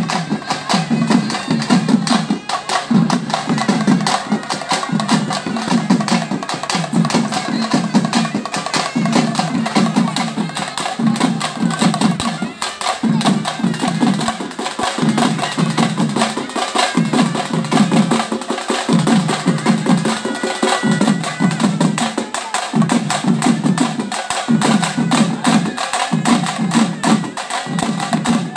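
A group of double-headed barrel drums beaten with sticks in a fast, driving folk rhythm. The heavy strokes come in phrases that repeat about once a second.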